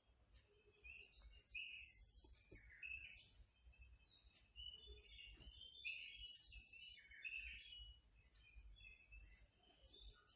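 Faint wild birdsong: many short, overlapping chirps and twitters, thickest in the middle seconds, over a low steady rumble.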